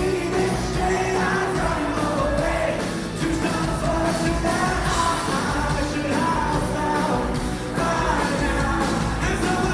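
Live rock band performing a song with singing, recorded from the audience at a concert.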